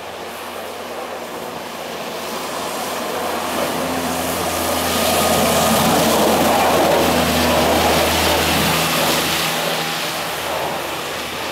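International diesel dump truck with a plow passing by: engine running while the plow blade pushes snow along the road. It grows louder to a peak about six seconds in, then fades as the truck drives away.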